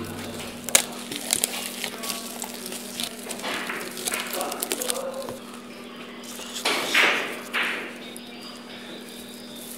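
Small clinks and taps of delivery food bowls being picked up, tilted and set down, with brief rustles of plastic wrap being pulled off a bowl about two-thirds of the way through. A low steady hum runs underneath.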